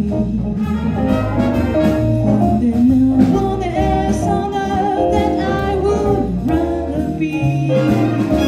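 Big band playing live: saxophones and brass holding chords over keyboard, bass and drums, with a singer's voice among them.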